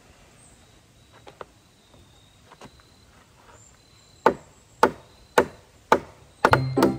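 A small multi-tool hatchet chopping into a dead branch: a few faint taps, then sharp whacks into the wood about half a second apart from a little past the middle, coming quicker near the end as music comes in.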